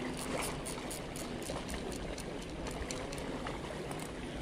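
Small sea waves lapping and washing against shoreline rocks, with frequent short splashes.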